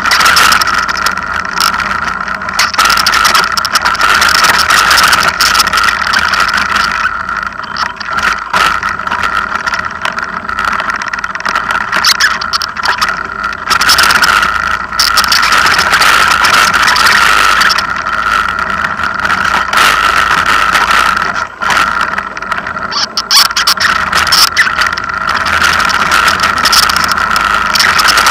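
A motor vehicle's engine running steadily and loudly, with a continuous high whine throughout.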